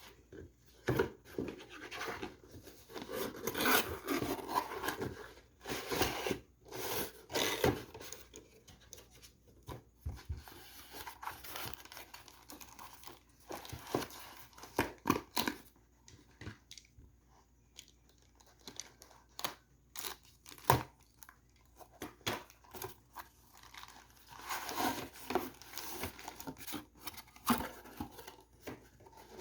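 Figure packaging being opened and handled: cardboard and plastic wrap crinkling and tearing in irregular bursts, with scattered sharp clicks and taps. There is a sparser, quieter stretch in the middle.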